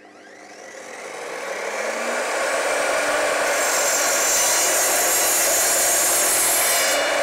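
Evolution R255SMS mitre saw's motor spinning up with a rising whine. From about three and a half seconds in, its blade cuts through a piece of oak with a loud, steady, high-pitched sawing noise. The cut ends just before the end.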